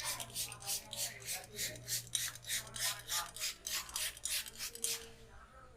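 Hands rubbing and scrubbing briskly through hair and scalp in a head massage: a rhythmic rasping of about four to five strokes a second that stops about five seconds in.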